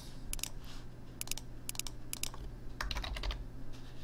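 Typing on a computer keyboard: scattered key clicks in small groups of two to four strokes, as a number is keyed into a spreadsheet cell.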